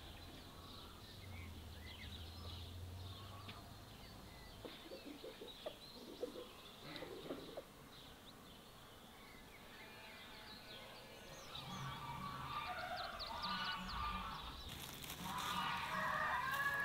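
Countryside birdsong: small birds chirping and a rooster crowing and clucking. From a few seconds before the end, grass rustles and crackles as mushrooms are picked by hand.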